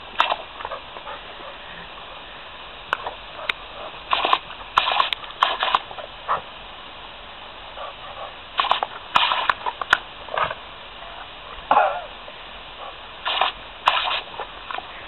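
Garden hose spray hissing steadily while a yellow Labrador bites and snaps at the stream, making clusters of short splashing bursts as the water hits its mouth.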